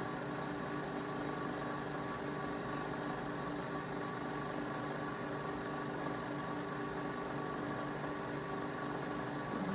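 Nespresso Vertuo Next capsule coffee machine running through its brew cycle: a steady mechanical whirring hum with several held tones.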